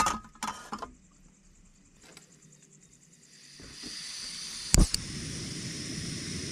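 A metal frying pan clatters onto the pot supports of a portable butane camping stove. About three and a half seconds in, the gas is turned on and starts to hiss. Two sharp clicks follow as it is lit, and the burner then runs with a steady hiss and a low roar of flame.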